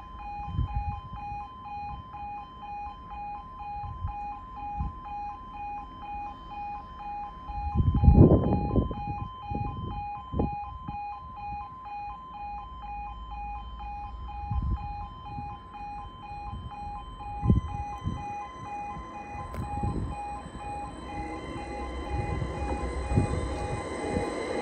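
A level crossing warning alarm sounds as a rapidly pulsing two-tone note, with low thuds now and then, the loudest about eight seconds in. In the last few seconds the noise of an approaching train builds up.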